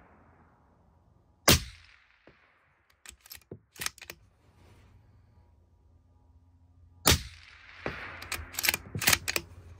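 Two suppressed shots from a bolt-action Christensen Arms MPR rifle in 6mm ARC, fitted with an Otter Creek Labs Hydrogen-S suppressor, about five and a half seconds apart, each a sharp crack with a short echo. After each shot come several quick metallic clicks as the bolt is worked to eject the case and chamber the next round.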